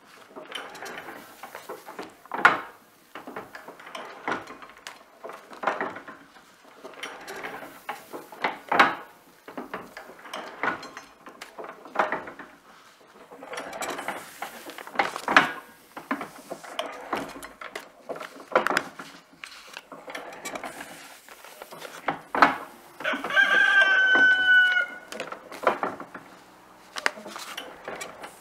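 Golding Pearl No. 3 letterpress platen press running, with a clack on each impression about every two seconds as bags are fed in by hand. Near the end a rooster crows once.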